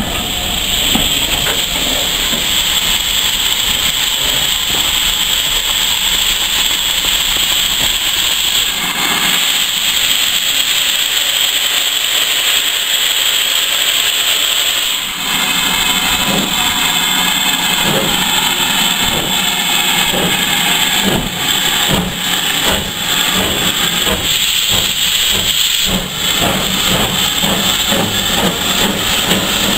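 Steam locomotive (BR Standard Class 4 2-6-0 No. 76084) hissing steam steadily as a train pulls slowly past. About halfway a slow, regular beat of the moving engine joins the hiss, about one a second.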